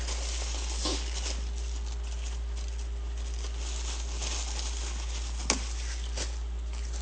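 Eating and food-handling noises: a few scattered light clicks and rustles over a steady low hum.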